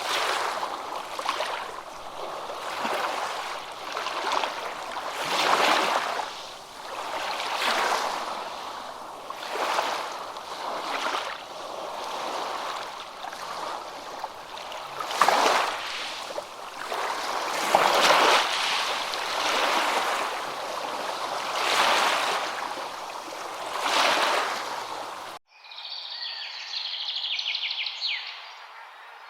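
Rushing water, a hiss that surges and falls back every couple of seconds. Near the end it cuts off suddenly and gives way to birds chirping with quick, bright calls.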